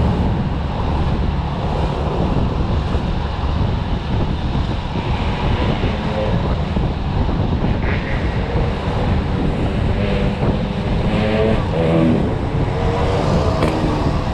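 Wind rushing over the microphone of a Yamaha NMAX scooter while it is ridden along a road, with the scooter's running engine underneath.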